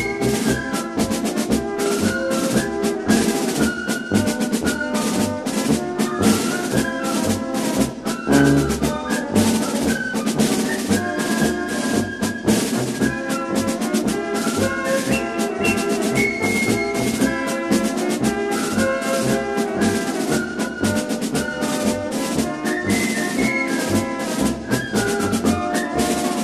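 Music with brass instruments and drums, playing over a steady beat.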